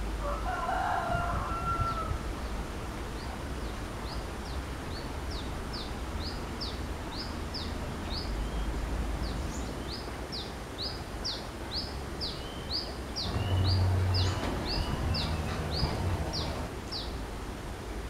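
Brown-throated sunbird singing a long run of sharp, high notes, about two a second, each dropping in pitch. A rooster crows once at the start, and a brief low hum comes about 14 seconds in.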